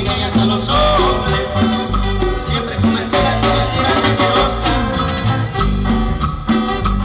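Live Latin dance band playing an upbeat number, with a stepping bass line under steady percussion and melody.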